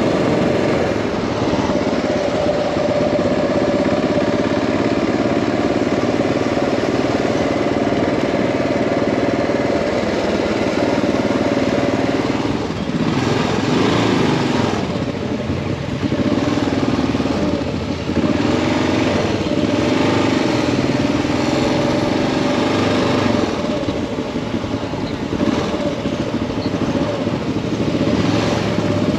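Motorcycle engine running, its pitch rising and falling several times around the middle as the engine speed changes.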